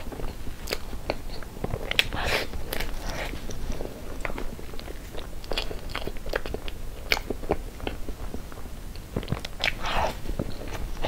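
Close-miked eating of soft whipped-cream cake: wet chewing and mouth sounds with many short clicks and smacks.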